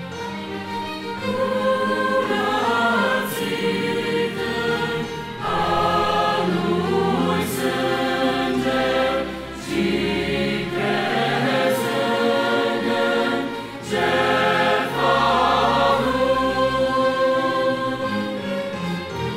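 Mixed youth choir singing a Romanian hymn in parts, in long held phrases with short breaks between them.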